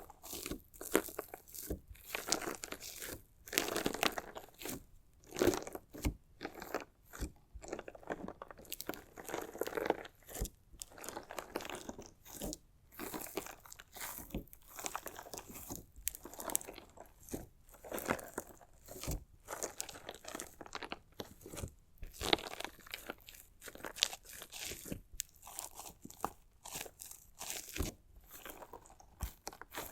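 Crunchy slime being cut and pressed: a dense, irregular run of crackles and crunches that swells and eases every second or two.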